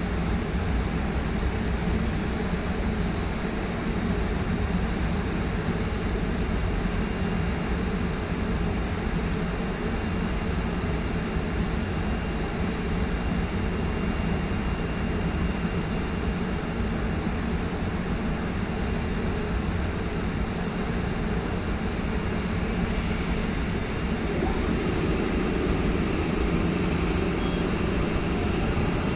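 Train running with a steady low rumble, as the retired JR 205 series electric cars are hauled as a delivery train, with a faint rising whine near the end.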